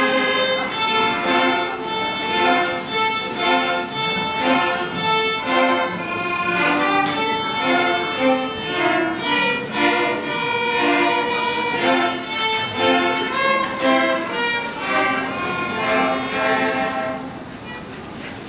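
A children's instrumental ensemble playing a tune, led by violins; the playing dies away near the end.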